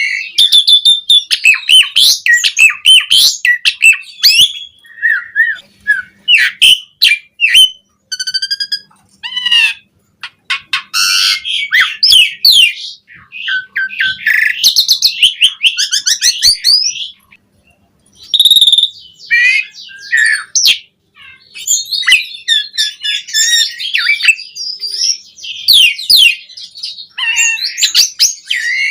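Asian pied starling singing a long, varied song of quick whistles, chattering and harsh notes, packed with mimicked phrases, with short pauses about ten and seventeen seconds in.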